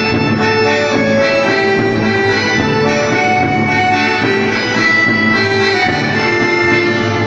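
Instrumental music: a melody of held notes over a steady accompaniment.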